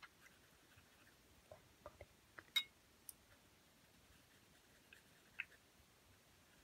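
Near silence with room tone and a few faint scattered clicks and taps; the loudest, about two and a half seconds in, is a short ringing clink, and another follows about five seconds in.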